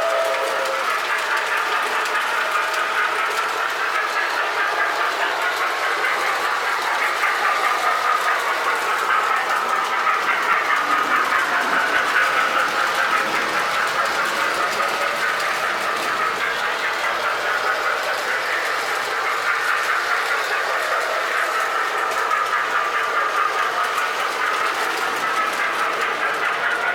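Lionel toy passenger trains running on the layout track: a steady motor hum and wheels clicking over the rail joints. A two-tone horn is ending just under a second in.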